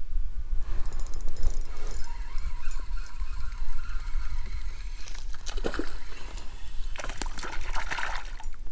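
Water splashing and sloshing beside a kayak, twice in the second half, over a steady deep rumble of wind on the microphone. About a second in comes a quick run of rapid clicks from a baitcasting fishing reel.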